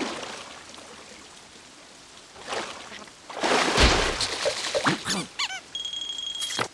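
Cartoon sound effects: a loud noisy blast with a low thump about halfway through, followed by quick squeaky cartoon-character vocalizations that slide up and down, and a short steady high whistle tone near the end.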